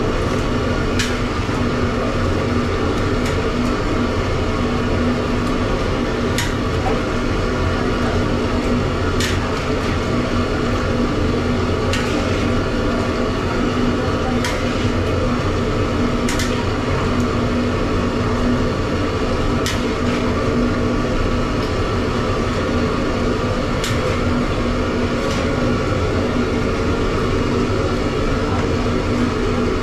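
A metal spatula scraping and knocking against a large steel wok as chicken pieces are stirred, about ten sharp clinks at irregular intervals. Underneath is a loud, steady machine drone with a low hum.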